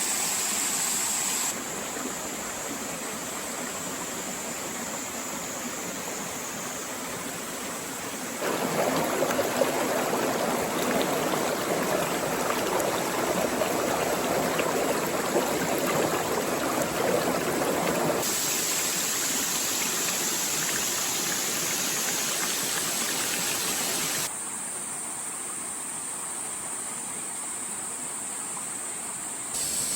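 Steady rushing of flowing water across several abruptly cut shots, louder and fuller between about 8 and 18 seconds in.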